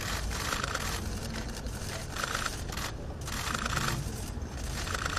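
Many press cameras firing their shutters in rapid bursts, a dense clatter of clicks with brief lulls about one and three seconds in.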